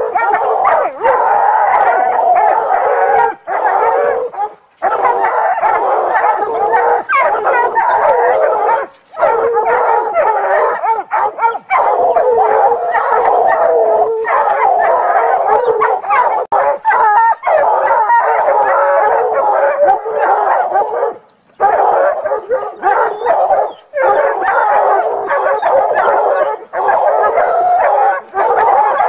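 Several hunting hounds baying and howling at a cornered mountain lion, their voices overlapping almost without a break.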